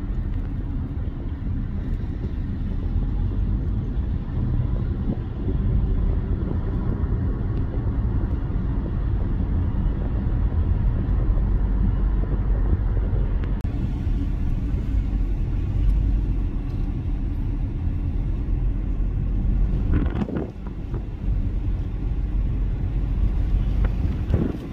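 Steady low rumble of road traffic, with a vehicle passing by about twenty seconds in and another near the end.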